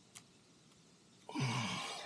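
A man's tired sigh about one and a half seconds in: a short exhale with a voiced groan falling in pitch, carried on a breathy hiss. A faint click comes just before it.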